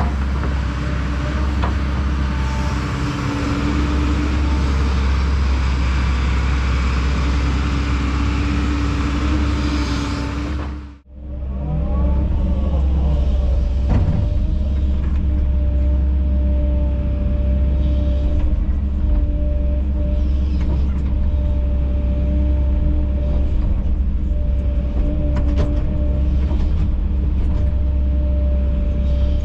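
Diesel engine of heavy earthmoving equipment running steadily under load, with a steady whine over the engine note. The sound drops out briefly about eleven seconds in at an edit, then the machine carries on running.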